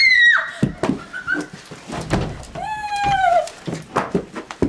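A girl screaming in fright, a short high shriek at the start and a second, falling cry about three seconds in, with thumping footsteps as she runs off.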